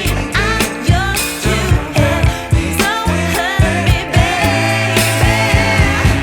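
Background pop song with a woman's sung vocal over a steady drum beat and bass.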